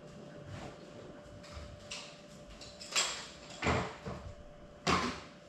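Three short knocks in the second half, over a faint steady hum.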